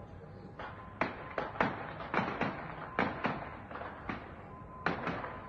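Gunfire in an armed tribal clash: about a dozen sharp shots at irregular intervals, each trailing a short echo.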